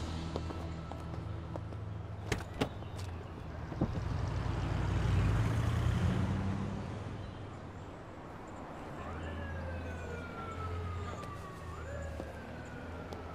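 City street traffic with a low steady rumble that swells about five seconds in, and a couple of sharp clicks. In the last few seconds a siren wails, its pitch sliding down, jumping back up and sliding down again.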